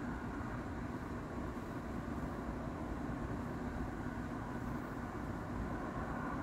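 Steady outdoor night ambience: a constant low rumble under a faint hiss and a faint steady hum, with no distinct events.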